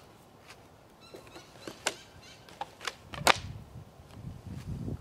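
Rubber bands being stretched over a foam-board wing and let go, giving a string of short, sharp snaps and clicks. The loudest snap comes about three seconds in, followed by a low rumble.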